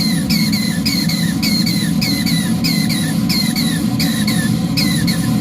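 3-inch scale Fowler DCC traction engine running on steam, with a rhythmic squeaking whistle: short falling chirps in pairs about every half second, over a steady low rush. The builder does not know what is causing the whistling.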